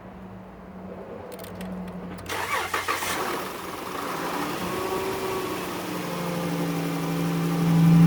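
A 2011 Dodge Caravan's 3.6-litre V6 cranking on the starter, catching about two seconds in and then running, louder toward the end: it starts now that the fuel pump relay in the TIPM has been replaced, curing the no-start.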